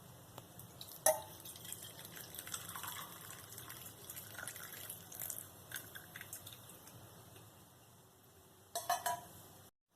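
Faint drips and trickles of hot kadha, an herbal decoction, with a few light clicks. The sharpest click comes about a second in, and a short cluster of them near the end.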